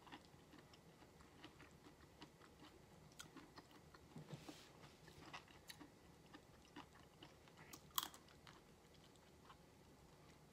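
Faint small clicks and crackles of raw shrimp being peeled by hand and eaten, over a quiet room, with one sharper click about eight seconds in.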